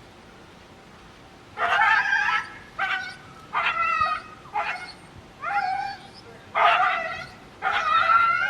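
A dog crying out in a run of high, wavering whines and yelps, about seven cries starting a second and a half in. The dog is agitated at another dog crossing the street, not hurt.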